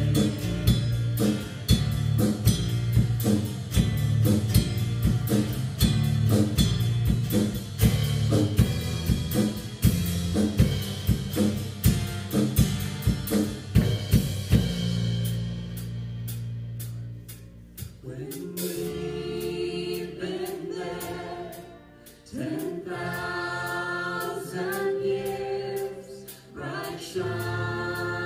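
Live worship band playing with singers: a full band with drum kit and guitars, then about halfway in the drums stop and the music drops to a quieter passage, with the singers coming in on a soft verse a few seconds later.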